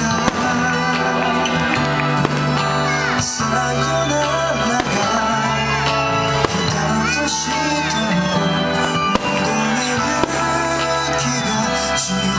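Music with long held tones plays throughout, with the sharp bangs of aerial firework shells bursting over it several times.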